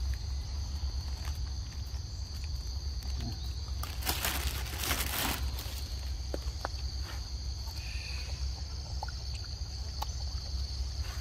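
Steady high-pitched drone of forest insects. A brief rustling noise comes about four seconds in and lasts a little over a second, with a few faint clicks scattered through.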